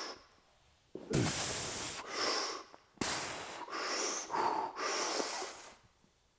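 A man taking several hard, noisy breaths in and out, bracing under a 100 kg barbell just before pressing it overhead.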